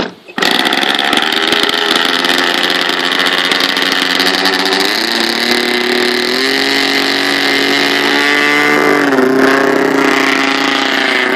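Two-stroke glow engine of a radio-control model plane catching about half a second in, after a brief spin from an electric starter, then running loudly. Its revs step up in stages and drop back about nine seconds in.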